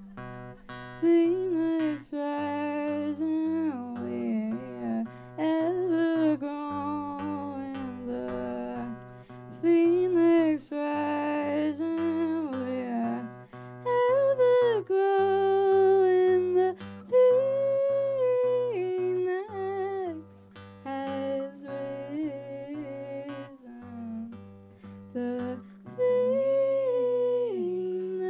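A woman's voice humming a wordless melody over steadily strummed acoustic guitar chords.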